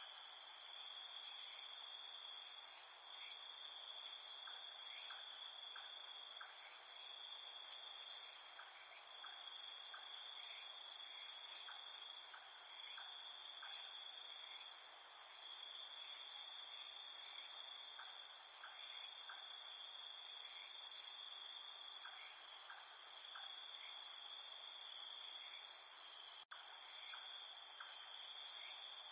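Night chorus of crickets and other insects trilling steadily at several high pitches, with short chirps lower down repeating at irregular intervals. The sound drops out for an instant near the end.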